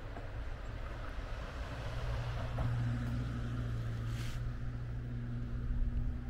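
A motor vehicle's engine hums steadily and grows a little louder about two and a half seconds in, over a steady outdoor hiss.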